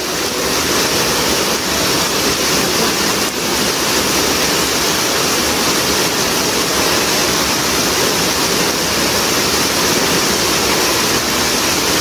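Loud, steady rush of fast, forceful water in a rocky hill stream.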